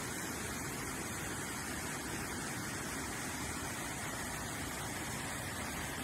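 Waterfall cascading over boulders: a steady, even rush of whitewater with no breaks or changes.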